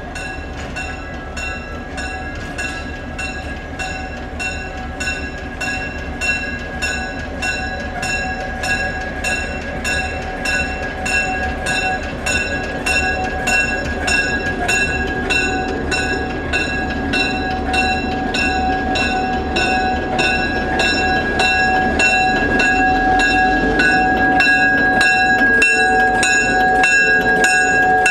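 EMD GP7 diesel locomotive with its 16-cylinder two-stroke engine drawing near and passing close by, its running sound growing steadily louder. A bell rings steadily throughout, about two strokes a second, as the train comes up to the crossing.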